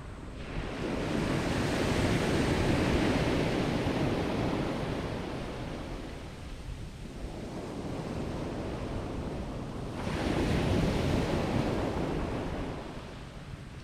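Sea waves breaking on the shore, two surges of surf that each build and then wash back, with wind buffeting the microphone.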